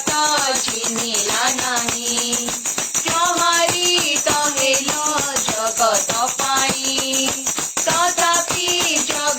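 Devotional worship-song music: an ornamented melody line over a steady, fast percussion rhythm.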